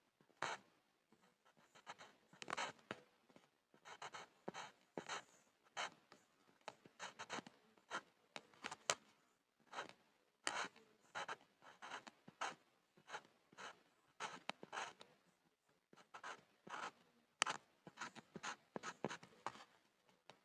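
Pencil scribbling on a wooden board: quick scratchy strokes in irregular bursts with short pauses between them.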